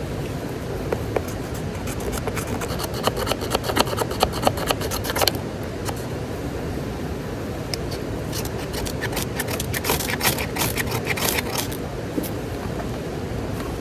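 Steady rush of a mountain stream, with two spells of rapid close scraping and clicking from hands working something, the first starting a couple of seconds in and the second about eight seconds in.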